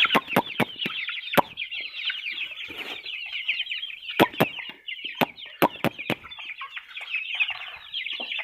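A flock of young chicks peeping continuously in a dense stream of quick, high chirps. Sharp taps and knocks are scattered through, several in quick succession near the start and around the middle.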